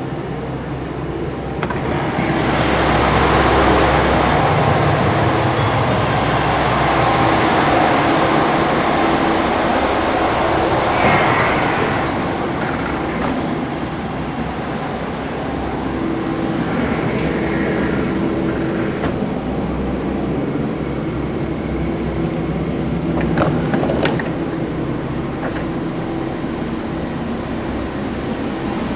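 Steady cabin noise inside a JR Shikoku 2000 series diesel express railcar: engine and running noise with a low hum, louder for about the first ten seconds, with a couple of short knocks near the end.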